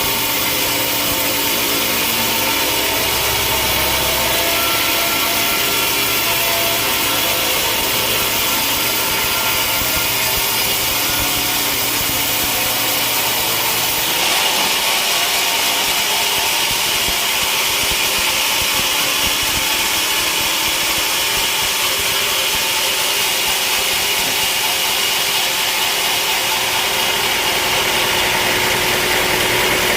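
Sawmill saw cutting through a large log: a steady loud noise of blade in wood over a running motor. About halfway the low hum drops away and a higher hiss takes over.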